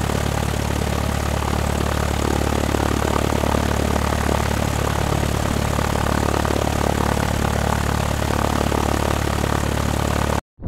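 Propeller airplane engine drone, steady and loud, cutting off suddenly near the end.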